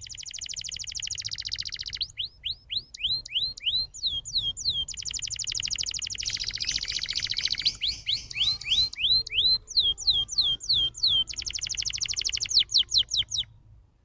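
Canary song: rapid rolling trills alternating with runs of repeated down-slurred whistled notes, ending abruptly about a second before the end.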